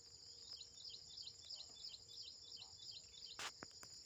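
A bird gives a rapid run of short, falling chirps, about five a second, for roughly three seconds. Behind it a steady, high-pitched cricket chorus keeps on. A single sharp click sounds near the end.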